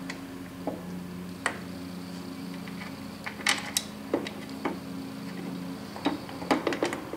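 Scattered small metal clicks and clinks as a South Bend 9-inch lathe apron is worked up into place under the saddle and its fillister-head screws are started by hand, with little clusters of clicks about halfway through and near the end. A steady low hum runs underneath.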